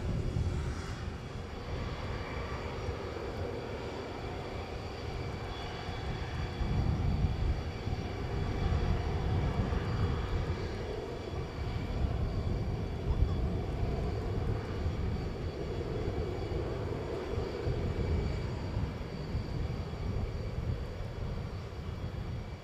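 Cessna 525 CitationJet's twin Williams FJ44 turbofan engines running, a steady whine of several high tones over a heavy low rumble, swelling somewhat in the middle.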